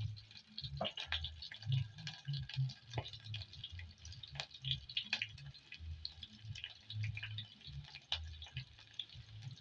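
Chopped onions frying in hot oil in a pot, with irregular crackles and pops over a low, uneven rumble.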